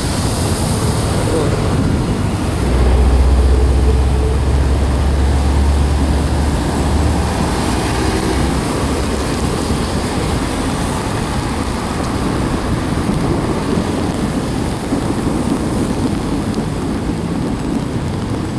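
City traffic on a rain-wet street: a steady hiss of tyres and engines, with a deep rumble for a few seconds near the start.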